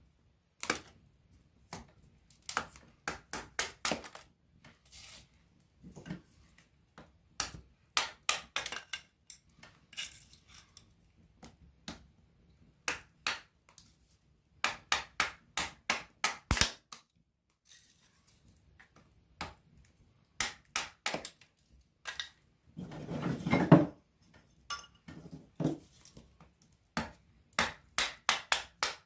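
Wood fire crackling up close: clusters of sharp snaps and pops with short quiet gaps between them, and one longer, louder burst of crackling about two-thirds of the way through.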